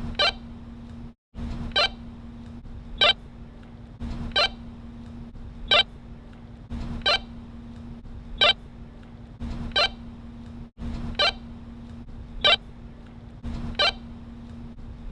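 Walkie-talkie static: a steady hiss with a low hum under it, cut by a short sharp chirp about every second and a half. Twice the hiss drops out for an instant, once about a second in and once near the end.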